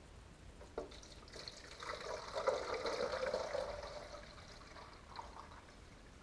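Water poured from a small jug into a coffee maker's water reservoir, starting after a light knock, running for about four seconds and tapering off near the end.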